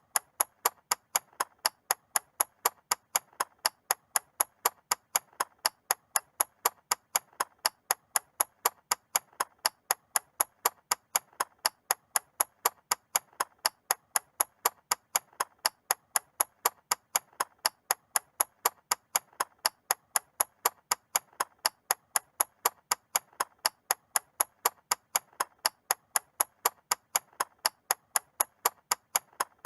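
Mechanical clock ticking, a quick, perfectly even train of sharp ticks at about three a second.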